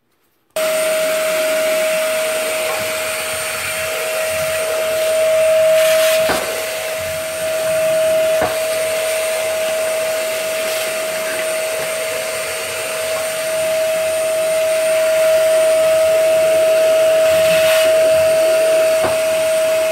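Ash vacuum cleaner switched on about half a second in, running steadily with a high whine as it sucks ash out of the inside of a pellet boiler. A few short knocks sound during the run.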